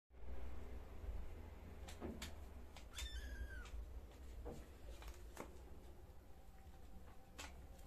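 A kitten gives one short, high mew about three seconds in, dropping at the end, amid a few light taps from kittens playing on a tiled floor.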